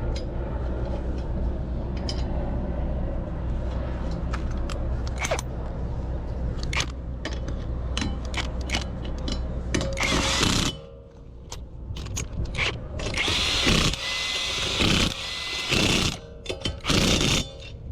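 Clicks and ratcheting of hand tools over a steady low hum, then several short bursts of a power tool, each about a second long, from about ten seconds in.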